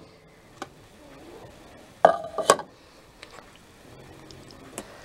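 Kitchen utensils and dishes clinking: a small click about half a second in, then a louder clink about two seconds in, with a few faint taps after.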